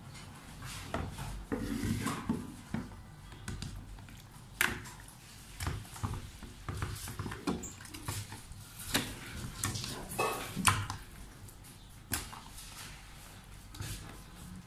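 Irregular handling sounds: soft knocks and clicks of a plastic food container and rustling as raw fish fillets are moved by hand from a plate into it.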